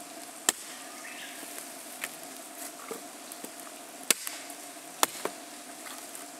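A few sharp knocks or cracks at irregular intervals: the loudest about half a second in, another about four seconds in and one about five seconds in, with softer ones between. Under them runs a steady faint hum.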